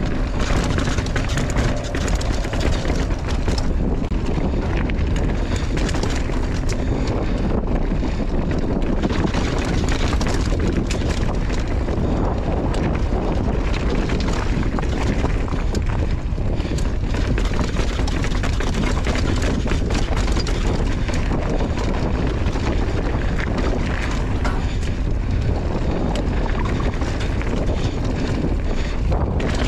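Wind buffeting a helmet- or bike-mounted camera microphone during a fast mountain bike descent on a dirt trail, with tyre noise and frequent small knocks and rattles from the bike over the ground.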